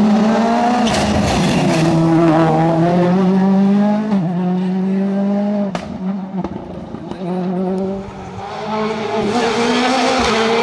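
1.6-litre turbocharged World Rally Car engines at full effort through tight tarmac bends: first a Ford Fiesta RS WRC, its revs climbing and dropping with quick gear changes and a sharp crack about six seconds in. The engine fades away, then a Citroën DS3 WRC comes up loud near the end.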